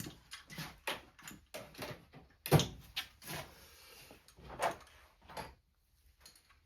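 Irregular knocks, clicks and clinks of metal tools and parts being handled at an engine bench, with the loudest knock about two and a half seconds in. The sounds thin out in the last second or so.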